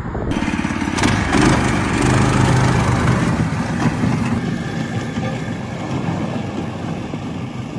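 A boat engine running with a steady hum, strongest between about one and four and a half seconds in, over a rushing noise.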